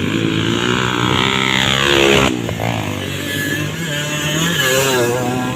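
Several motocross dirt bike engines revving at once, their pitches rising and falling as they ride; one climbs in pitch and then drops sharply a little over two seconds in, as when the throttle is shut or a gear is changed.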